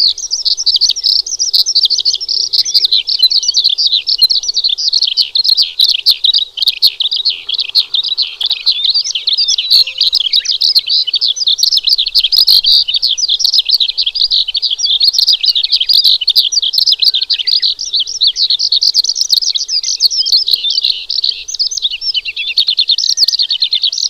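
Branjangan (lark) singing a continuous, rapid, dense song of high chirps and trills without a break.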